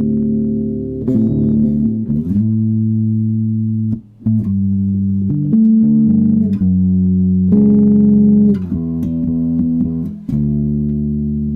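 Electric bass guitar played through an Orange OBC112 bass cabinet: held low notes with a few sliding notes, and a brief break about four seconds in.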